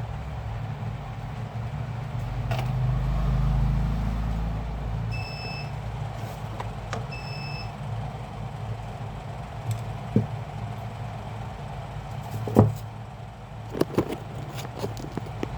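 A steady low rumble, like traffic or an engine in the background, swelling for a few seconds as if a vehicle passes. Two short electronic beeps about two seconds apart, then a few sharp clicks and knocks near the end.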